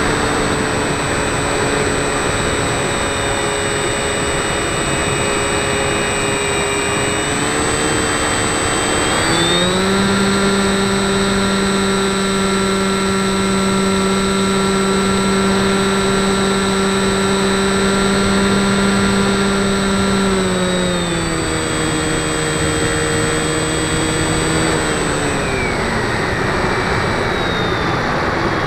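The motor and propeller of an RC FPV model plane, heard from the plane's onboard camera: a steady whine over wind rush. Its pitch rises about eight to ten seconds in as the throttle is opened, holds high, then falls back between about twenty-one and twenty-six seconds in.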